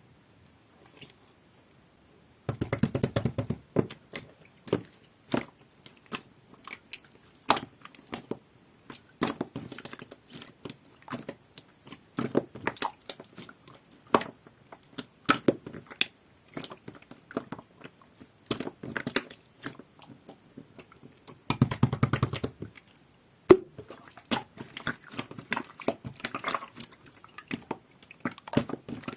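Clear jelly-like slime being squished and poked by hand, making a stream of small sticky clicks and pops, with two denser bursts of squishing about three seconds in and again near the end.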